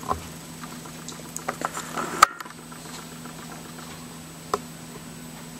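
Handling noise: a few light clicks and knocks, the loudest a sharp click about two seconds in, over a steady low hum.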